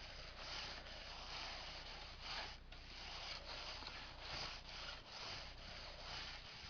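Repeated rasping, scratching strokes on a catnip-dusted cat scratcher, about two or three a second.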